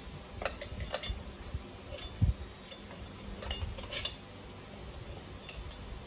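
Light metallic clicks and clinks of a screwdriver and small screws being handled against the metal chassis of a gas RC truck, with one dull thump about two seconds in.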